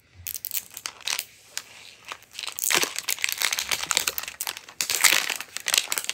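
Thin plastic wrapping crinkling and tearing as it is peeled off a Mini Brands capsule ball, a dense run of crackles that grows louder about halfway through.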